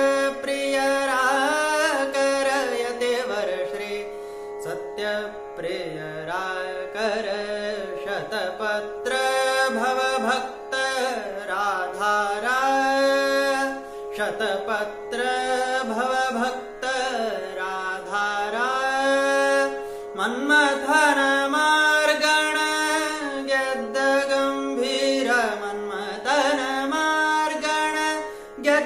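A man singing a Kannada Haridasa devotional song in raag Sarang, drawing out long melodic glides and ornaments with short breaths between phrases. A steady drone holds one pitch underneath.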